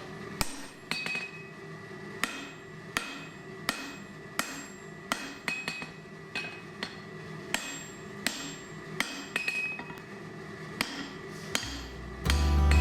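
Hammer blows on hot mild steel on an anvil, a sharp ringing strike about every three quarters of a second, over a steady low hum. Acoustic guitar music comes in about a second before the end.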